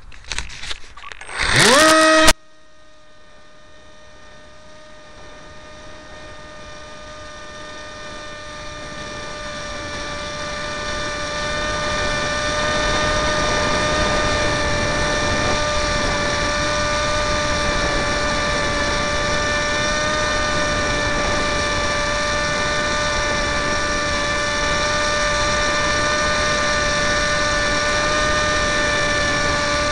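Electric motor and pusher propeller of a Multiplex EasyStar RC model plane, heard from a camera on the plane: a sharp rising whine amid clattering handling noise about two seconds in as it spools up for launch, then a steady high whine that grows louder over the next ten seconds and holds through the climb.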